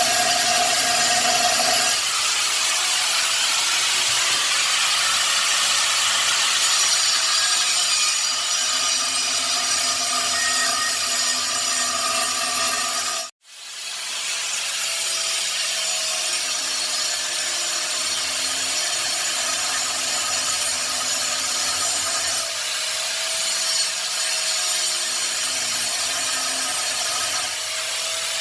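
A power tool sawing or cutting steadily, its motor pitch wavering under load. The sound breaks off abruptly about halfway through and picks up again.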